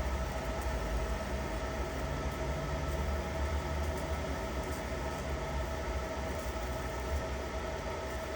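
Laser engraving machine running steadily: a low hum with a faint steady whine over it.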